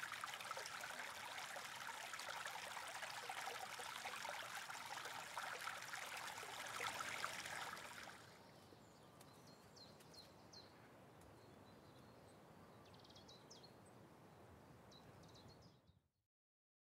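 Shallow stream running over stones, a steady rush of water. About eight seconds in it cuts to a much quieter faint hiss with scattered high bird chirps, then drops out near the end.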